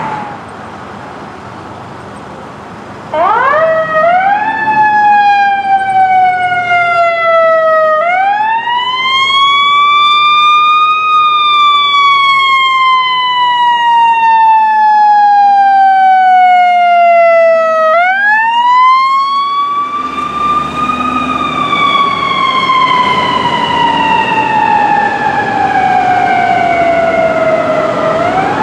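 Emergency vehicle electronic siren on a fire department rescue ambulance. After a few seconds of quieter traffic noise it starts with a few quick rising chirps, then wails in long slow sweeps, rising for a few seconds and falling for longer, over road noise.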